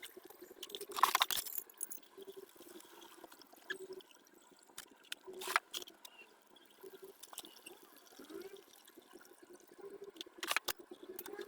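Faint water draining from a front-loading washing machine's filter outlet into a cut-down plastic bottle, emptying the drum by hand. A few sharp knocks of the bottle and filter being handled.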